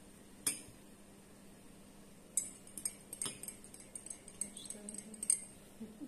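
Light clinks of a teaspoon against cups or glasses, a handful of sharp ringing taps spread over the few seconds, as instant coffee is stirred and served.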